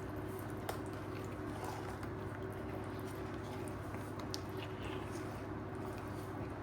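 A steady low hum with a few faint, soft clicks.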